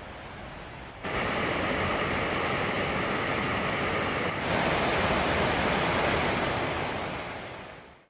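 Rushing water of a mountain waterfall and stream. A fainter, more distant rush steps up suddenly about a second in to a loud, close rush of falling water, which grows a little louder about four seconds in and then fades out at the end.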